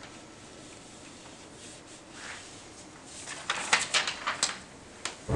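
Paper being handled at a wooden counter: a few soft rustles and light taps of a prescription sheet, mostly between three and four and a half seconds in, over faint room noise.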